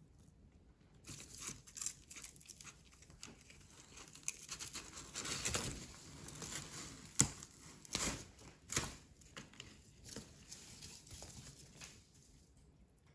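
Corrugated cardboard being torn and crinkled by hand: irregular scratchy rustling with a few sharp snaps, loudest in the middle.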